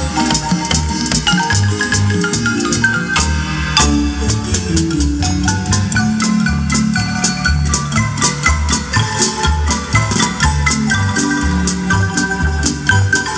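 Marimba music with a steady rhythmic bass line and rattling percussion.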